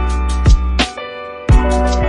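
Background music with a steady beat, a sustained bass line and drum hits.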